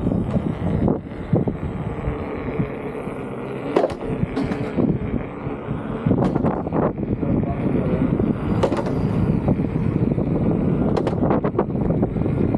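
Electric unicycle tyres rolling over a concrete sidewalk: a steady rumble of rolling noise, with scattered sharp clicks and knocks from bumps and pavement joints.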